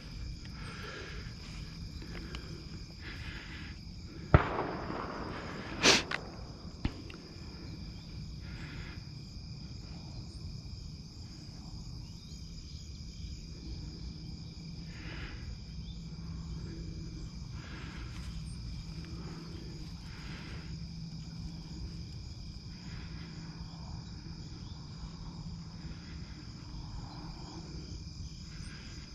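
Steady chorus of night insects with a low hum beneath it. About four seconds in comes a sharp bang that trails off over about a second, followed by two more sharp cracks within the next two and a half seconds.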